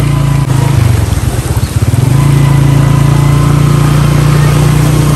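Small motorcycle engine running steadily at low revs. About half a second in, its pitch dips and wavers for a second or so, then it settles back to a steady run.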